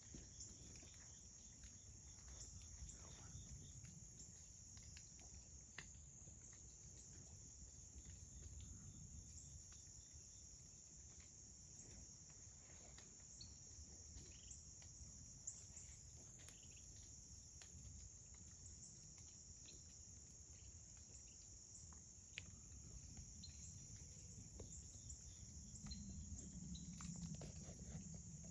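Faint, steady high-pitched chorus of insects such as crickets or katydids, with scattered soft ticks and a low rumble underneath. A low hum comes up near the end.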